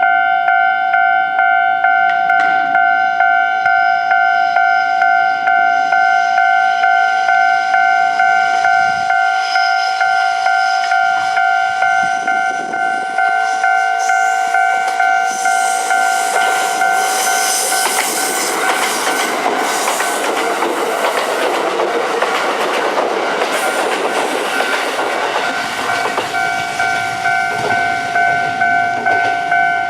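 A Japanese level-crossing warning bell rings in a steady pulsing ding-ding. About halfway through, a Kintetsu limited express made up of a 30000 series Vista Car and a 22000 series set passes over the crossing. Its wheel and running noise is loudest for several seconds, then dies away while the bell keeps ringing.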